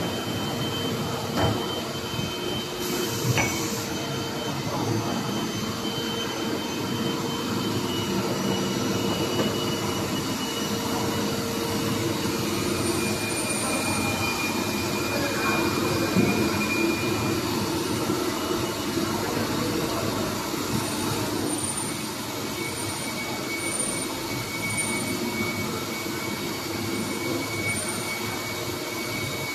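Bearing factory machinery running: automatic bearing-ring grinding machines giving a steady din with several held whining tones, and a few short knocks.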